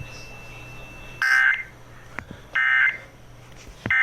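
Three short bursts of warbling SAME digital data tones from a NOAA Weather Radio receiver, about a second and a half apart. This is the end-of-message signal that closes the severe thunderstorm warning. Faint clicks and a low steady hum sit underneath.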